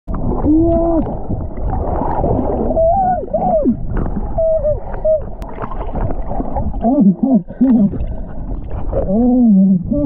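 Humpback whales vocalizing underwater: a series of pitched moans and whoops that swoop up and down in pitch, heard over a steady low rush of water noise.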